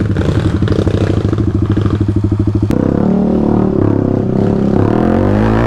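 Yamaha WR155R trail motorcycle's single-cylinder engine running at low revs on the trail, with a rapid, even pulse. About two and a half seconds in there is a sharp click, and the engine sound turns steadier with its pitch shifting up and down.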